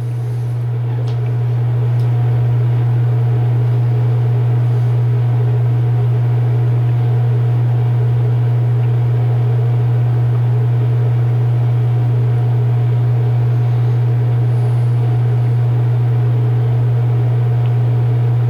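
A loud, steady low hum with fainter higher tones above it, swelling over the first two seconds and then holding level.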